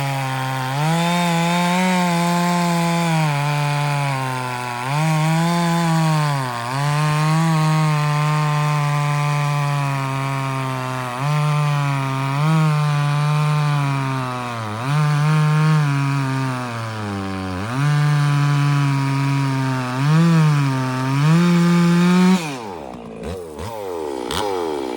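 Stihl 046 chainsaw with a dual-port muffler, driving a 28-inch full-skip chain through a log at full throttle. The engine pitch dips again and again as the saw bogs under load, then picks back up. Near the end the throttle is let off and the engine speed falls away.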